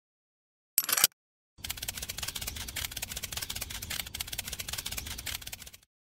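A short click about a second in, then a small motor running with a steady rattle for about four seconds, cutting off near the end.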